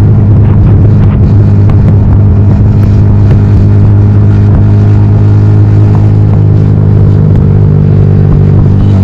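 Yamaha XSR155's single-cylinder engine running through a homemade full-system 'growl' exhaust, loud and held at a steady pitch while the bike cruises at constant throttle.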